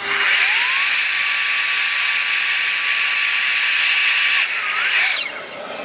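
Evolution F255SMS sliding mitre saw started up. Its multi-material blade spins up with a rising whine and cuts through a plastic kitchen skirting strip under a loud steady hiss. About four and a half seconds in the trigger is let go, and the whine falls away as the blade winds down.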